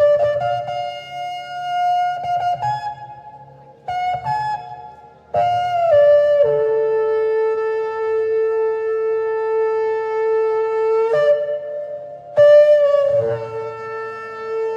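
Shofar blown in a series of blasts: short calls stepping up in pitch over the first few seconds, then one long blast of about six seconds that drops in pitch near its start and holds steady, followed by further calls near the end that slide down in pitch.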